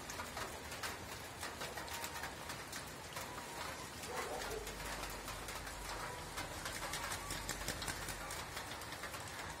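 Domestic geese splashing as they bathe in a rain puddle, with many short water splashes and soft bird calls, one about four seconds in.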